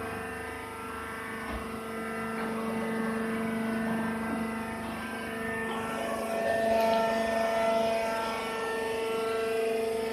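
Vertical hydraulic baler running, its hydraulic pump and motor giving a steady mechanical hum.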